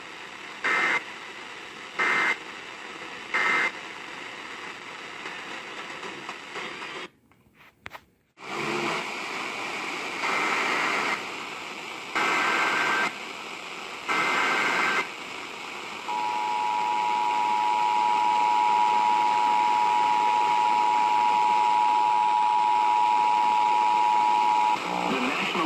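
Emergency Alert System signals over radio hiss. First come three short buzzy SAME data tones, the end-of-message code, then a brief dropout. Next come three longer SAME header data tones, then the two-tone attention signal (853 and 960 Hz sounded together), held steady for about eight seconds.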